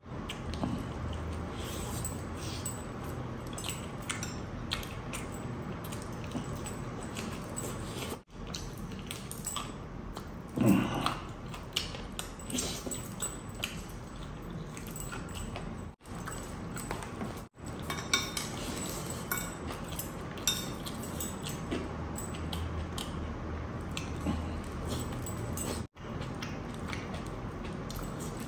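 Close-miked eating: chewing, biting and lip-smacking on a chicken drumstick, then on rice eaten by hand, with small clicks. A louder, pitched mouth sound comes about eleven seconds in, and the sound drops out for an instant several times.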